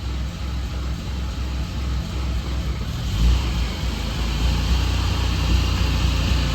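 Norton Classic's air-cooled twin-rotor Wankel engine running with a low, uneven rumble that gets louder about three seconds in. The owner is investigating an odd noise this rotary makes on overrun.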